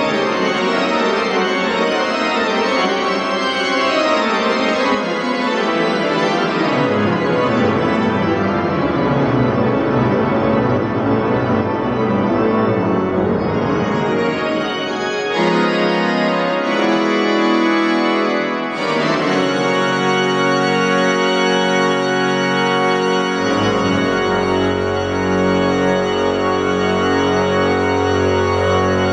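Pipe organ, the Forrest organ, playing loudly in a large church: dense, fast-moving passagework gives way after about half the time to held block chords, and a deep pedal bass comes in near the last quarter.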